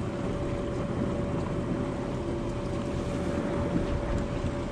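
Steady wind and water noise on a small open boat on the water, with wind buffeting the microphone and a faint steady hum running underneath.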